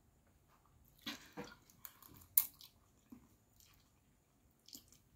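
A person eating spaghetti bolognese off a fork: soft, quiet mouth and chewing sounds with scattered small clicks, one sharper click about two and a half seconds in.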